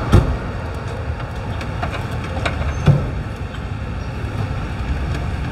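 Steady low rumble of outdoor background noise, with a few light clinks and knocks of a metal serving spoon against steel food pots; the sharpest knock comes right at the start and another about three seconds in.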